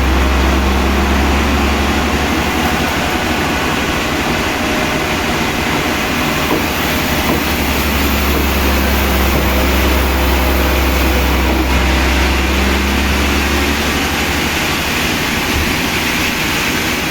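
A heavy machine or engine running steadily, with a low drone under a broad noisy hiss; the drone fades and returns a couple of times.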